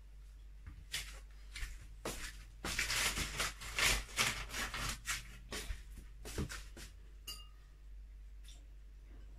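Kitchenware being handled: a run of quick scrapes and clatters, thickest in the middle, followed by one short ringing clink.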